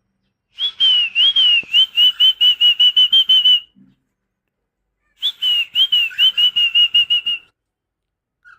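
Cockatiel whistling: two runs of short, wavering whistled notes, each run speeding up toward its end.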